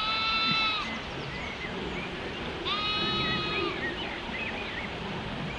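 A lamb bleating twice, each call a steady, high-pitched baa about a second long, the two calls about two and a half seconds apart.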